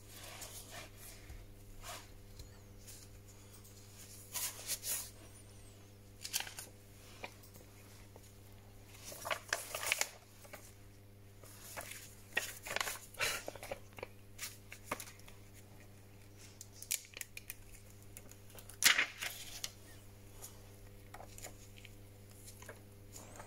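Plastic liner film being handled and peeled off a phone's adhesive gasket: scattered crinkling, tearing rustles, the loudest one late on, over a steady low electrical hum.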